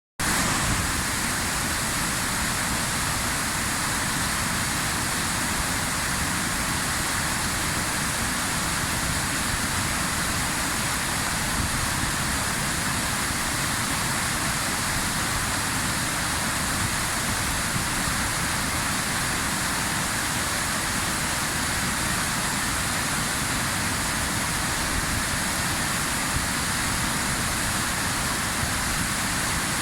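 Štrbački buk waterfall on the Una river: water pouring and crashing down the cascades in a steady, unbroken rush.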